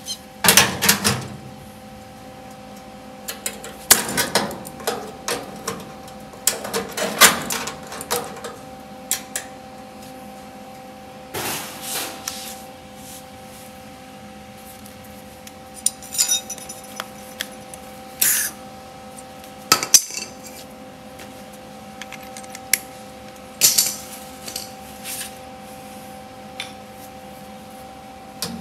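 Metal hand tools clinking and clanking against each other and against steel as they are picked up and set down, with irregular sharp metallic knocks, some in quick clusters. A faint steady hum runs underneath.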